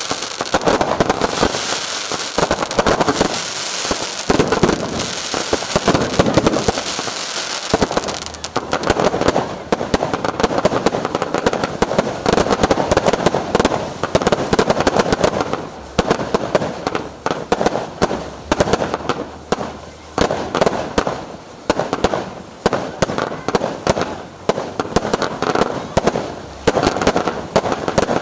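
Fireworks going off in a rapid barrage. For the first several seconds there is dense, continuous crackling and banging. From about halfway through it breaks into quick volleys of bangs with short pauses between them.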